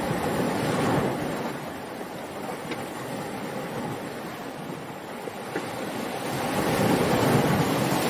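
Ocean waves washing up onto a sandy shore and drawing back: a steady rushing surge that swells about a second in and again near the end.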